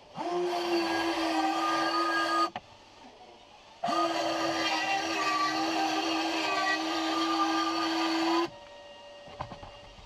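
Bosch cordless compact circular saw cutting plywood, trimming an overhanging panel edge. Two runs, a short one of about two seconds and a longer one of about four and a half seconds, each with a steady motor whine under the cutting noise, starting and stopping abruptly.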